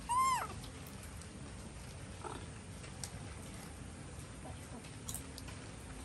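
A monkey gives one short, loud squeal right at the start, its pitch rising then falling, during a squabble over a banana; a fainter call follows about two seconds in, with a few soft clicks later.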